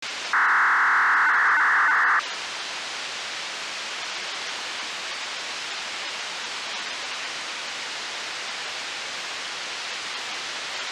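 Radio hiss from a weak analog FM disaster-prevention broadcast picked up on a software-defined radio receiver. About a third of a second in, a loud buzzing signal tone sounds for about two seconds, the start-up control signal of the municipal outdoor loudspeaker system. Then the steady hiss runs on.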